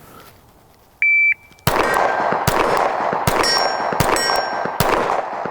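A shot timer's short start beep, then a string of rapid 9mm shots from a SIG P365 pistol, about one every 0.8 seconds, at a steel target from 25 yards. Some shots are followed by the ringing clang of a hit on the steel plate.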